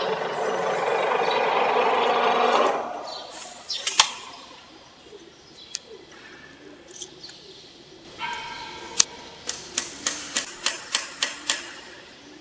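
Electric steel-wire tensioning machine's motor and gearbox running, then shutting off about two and a half seconds in and dying away. After that a single sharp metal click, and later a quick run of about eight metal clicks.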